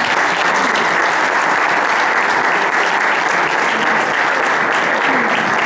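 A room full of people applauding: steady, dense hand-clapping.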